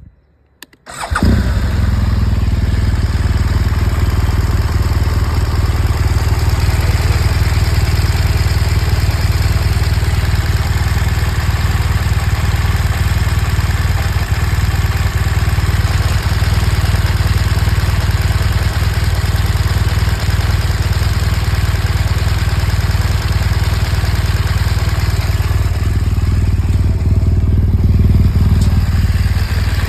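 2014 BMW R1200 GS boxer-twin engine running steadily from about a second in, with a ticking noise from the engine whose cause is unknown.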